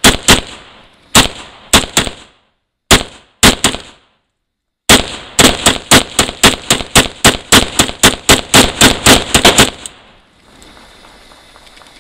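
Zastava M92 PAP AK pistol in 7.62x39 firing semi-automatic: about seven spaced shots, a short pause, then a fast string of about twenty shots at roughly four a second that stops near ten seconds in.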